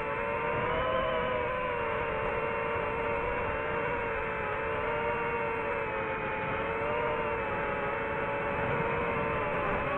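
DJI FPV drone's motors whining steadily, the pitch wavering up and down a little with throttle, over a rushing noise.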